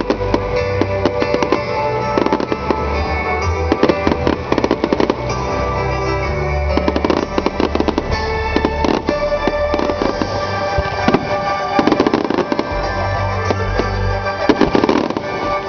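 Aerial fireworks going off in rapid clusters of bangs and crackles, with the show's music playing underneath.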